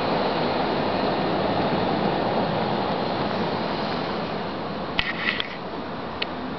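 Steady rush of road noise from street traffic, slowly fading. A few sharp clicks come about five seconds in, and one more near the end.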